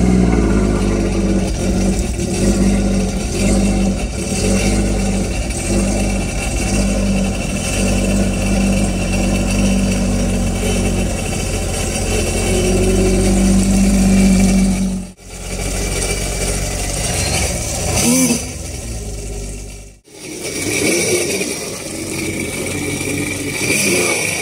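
Sea-Doo GTX 170 personal watercraft's Rotax three-cylinder engine running steadily, freshly started. The sound breaks off sharply twice, about 15 and 20 seconds in, and picks up again each time.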